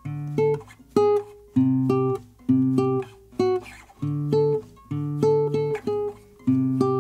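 Background music: acoustic guitar strumming short, choppy chords in a steady rhythm, about two a second.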